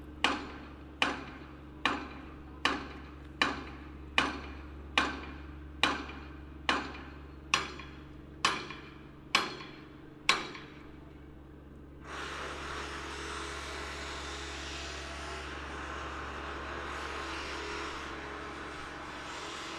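A hammer striking at an even pace, about one blow a second, a dozen or so blows that stop about ten seconds in. About two seconds later a steady rushing noise sets in and runs on.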